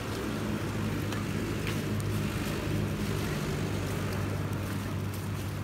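Steady low hum of an engine running, holding an even pitch throughout.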